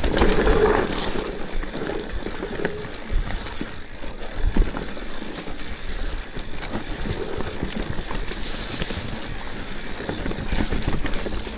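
Orbea Rallon mountain bike ridden along a dirt trail: steady tyre noise with frequent knocks and rattles from the bike over rough ground.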